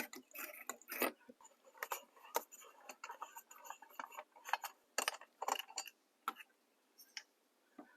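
Irregular light clicks and clinks of an outdoor light fixture and its mounting hardware being handled while the fixture is taken down.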